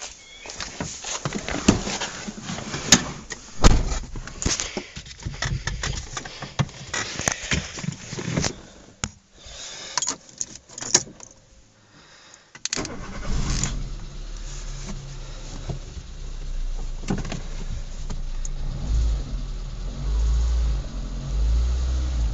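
Clicks and knocks of handling for about twelve seconds, then a short lull. About two-thirds of the way in, a Renault Clio II's 1.2 litre 8-valve petrol engine starts and settles into a steady idle, swelling louder a few times near the end. It echoes off the walls of a confined space, and the owner calls its running noise tappety.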